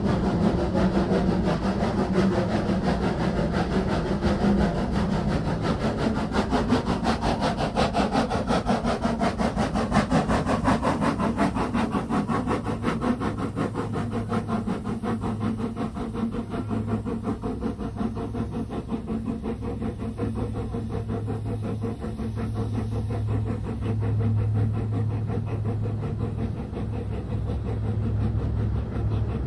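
Brienz Rothorn Bahn rack steam locomotive No. 2 working hard uphill, its exhaust blast a rapid, even run of chuffs. In the second half a low steady engine hum from the following diesel locomotive comes up under the beats.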